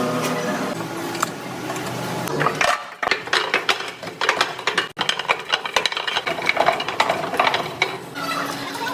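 Machinery clicking and clattering rapidly and irregularly, with a held humming tone in the first couple of seconds and again near the end.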